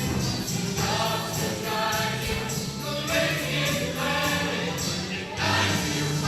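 A high school show choir singing, with sustained low instrumental notes under the voices.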